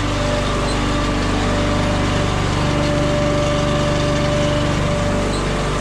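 Firewood processor's engine running steadily, warming up so the hydraulic fluid gets circulating through the machine.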